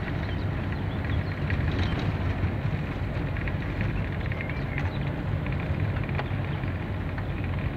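Ford Sierra 1.8 driving at a steady pace, heard from inside the cabin: a low, steady engine hum with tyre and road noise and scattered small clicks.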